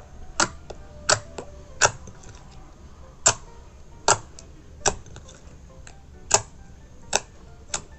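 Glitter slime in a glass bowl popping and clicking as fingers press and poke into it: about nine sharp pops, roughly one every second.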